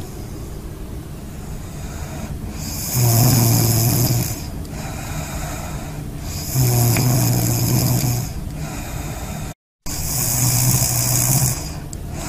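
A sleeping woman snoring: three loud, low snores about three and a half seconds apart, each lasting a second or more.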